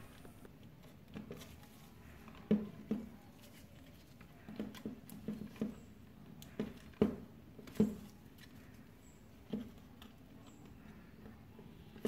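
Faint, irregular clicks and taps of a plastic washing-machine drain motor and its wire ends being handled as wires are pushed onto its terminal pins, the motor not yet powered.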